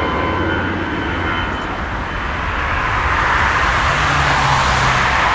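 Jet engines of an easyJet Airbus airliner climbing out after takeoff, a steady deep roar whose high whining tones fade away in the first second or two. The roar dips slightly around two seconds in, then swells again.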